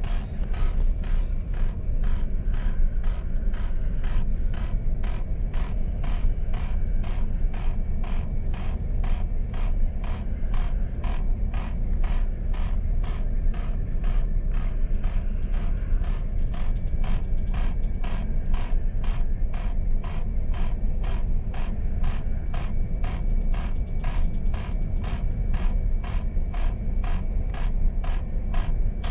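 Citizen TXS-12S ship's master clock system clicking evenly, about two clicks a second, as its time is being run backwards, over a steady low hum.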